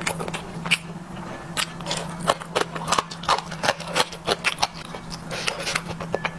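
Close-miked chewing of a mouthful of spicy noodles: irregular wet mouth clicks and smacks, over a steady low hum.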